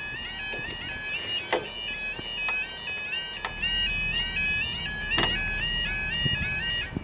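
Level crossing audible warning: an electronic two-tone alarm warbling steadily back and forth between two pitches, with a few sharp knocks over it. It cuts off suddenly at the end.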